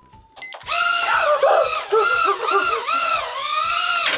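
Motors of a tiny CX-OF toy quadcopter spinning up about half a second in, a high whine of several close tones whose pitch rises and falls over and over as it flies, then cutting out suddenly at the end.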